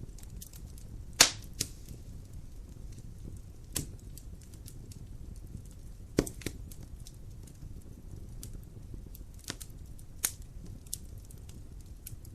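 Wood fire burning in a fireplace: a steady low rumble of flames with scattered crackles and sharp pops, the loudest about a second in and about six seconds in.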